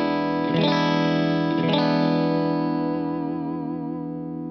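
Clean electric guitar chords through a Donner Ultimate Comp compressor pedal, played on the split-coil middle pickup position: two strums about half a second and a second and a half in, each ringing out with long, even sustain that slowly fades and wavers slightly near the end. The compressor is keeping the single-coil sound from dropping in volume.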